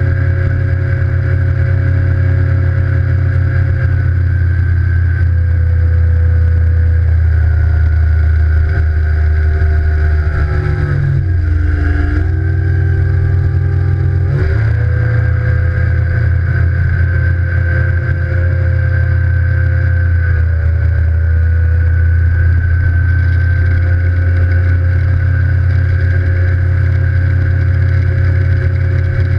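Evinrude E-TEC G2 150 HO outboard, a direct-injection two-stroke V6, running at high speed with water rushing past the hull. About ten seconds in the engine note drops in pitch, then climbs back to its steady running note about four seconds later.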